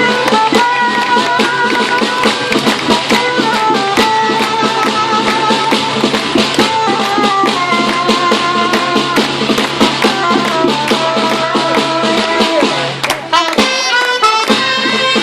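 Live ensemble music: a sustained, wavering melody line over busy, rapid percussion. About thirteen seconds in the texture thins briefly, then a quick run of high rising notes comes in.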